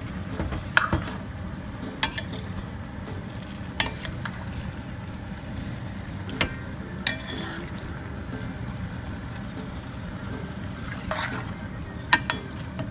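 Chicken pieces with onion and ginger sautéing in a stainless steel pan, sizzling steadily while a metal spoon stirs them; the spoon clinks against the pan about half a dozen times, the loudest sounds. The chicken is being sautéed dry, before any water goes in.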